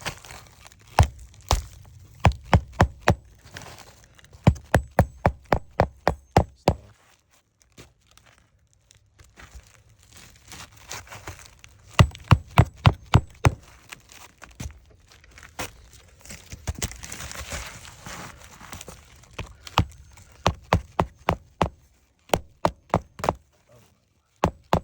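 Roofing hatchet hammering roofing nails through an asphalt shingle into the deck: runs of sharp, quick blows, a few a second, each run driving one nail, with short pauses between nails.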